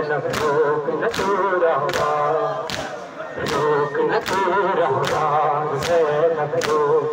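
Crowd of men chanting a noha lament in unison, with sharp chest-beating (matam) slaps in a steady rhythm, a little more than one a second.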